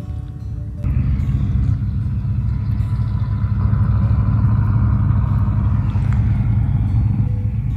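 An engine running steadily with a loud low hum, cutting in suddenly about a second in.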